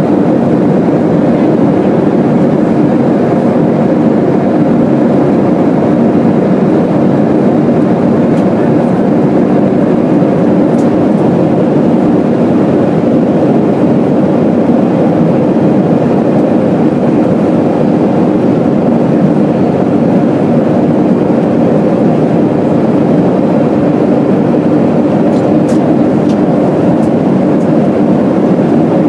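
Steady cabin drone inside a Boeing 737-300 in flight, the noise of its CFM56-3 turbofan engines and the airflow over the fuselage, even in level throughout.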